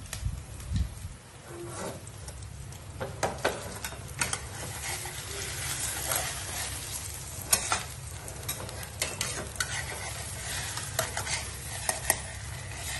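Tiny shrimp sizzling in a frying pan as they are stir-fried, with a utensil knocking and scraping against the pan at irregular moments.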